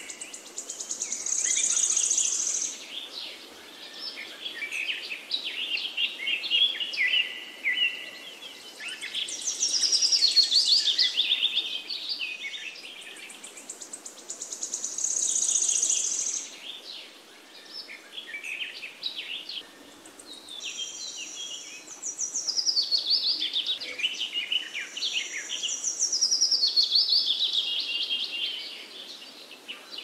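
Birds singing: high chirps and trills that swell into louder phrases every five or six seconds, with quieter chirping between.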